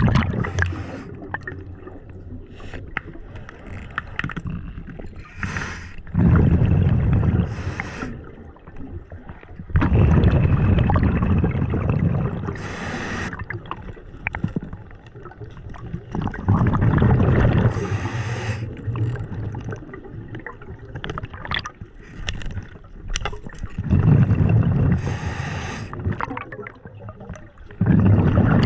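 A scuba diver breathing through a regulator underwater: loud rumbling bursts of exhaled bubbles about every six to eight seconds, with short hisses from the regulator between them.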